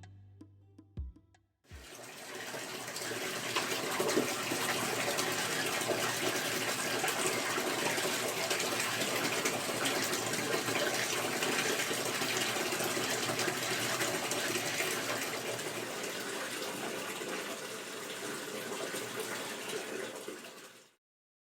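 Water running steadily from a tap into a bathtub, starting about two seconds in and cutting off abruptly near the end.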